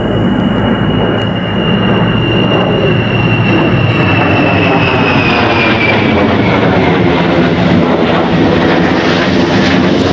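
Tu-160 bomber's four turbofan jet engines, loud as it flies overhead, with a high whine that slowly falls in pitch over the first six seconds or so.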